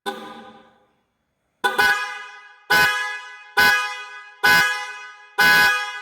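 Autovision car horn sounded in short honks, about one a second, six times, each dying away quickly after it cuts off; the second is a quick double toot.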